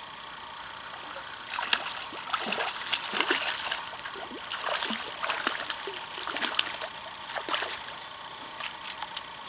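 Hooked Arctic grayling splashing and thrashing at the surface of the river as it is reeled in, in irregular splashes starting about a second and a half in and dying away near the end.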